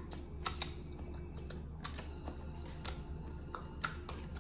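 Crisp roasted seaweed (nori) sheet crackling and crunching as it is handled and bitten: a scatter of short, sharp, irregular crackles.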